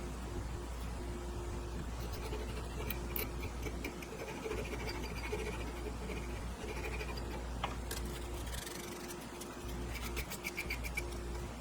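Workshop machine running as a toothbrush holder is cut out of a board: a steady low hum with a mid-pitched tone that switches on and off, and scratchy clicks, with a quick run of clicks near the end.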